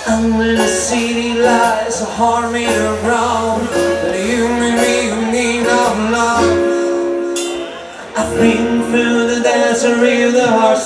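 Live band music through a PA: a male singer over an acoustic guitar, a bass and the band. About six and a half seconds in the bass drops out and it thins to a held note, then the full band comes back in near eight seconds.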